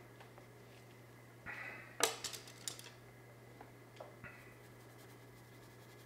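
Paintbrushes handled at the painting table: a short scraping rustle, then a quick cluster of light wooden clicks and clatters as brushes knock together, a few single ticks, and another brief rustle, over a low steady hum.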